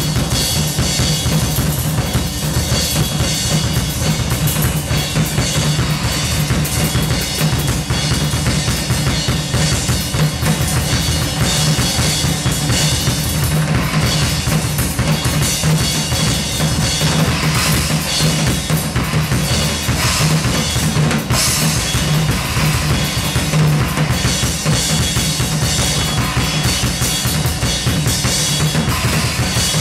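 Yamaha drum kit played live: dense, busy strokes on snare, toms and cymbals over bass-drum beats, with cymbal wash throughout and a steady low tone underneath.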